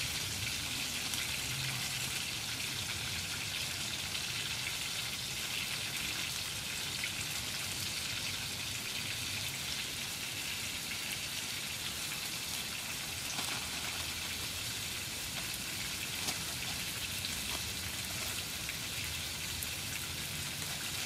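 Pork chops and mushrooms sizzling in a frying pan on a camping stove: a steady hiss with faint crackles.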